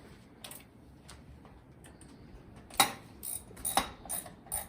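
A handful of irregular sharp clicks and taps, one about half a second in and a cluster of five in the last two seconds, the first of these the loudest.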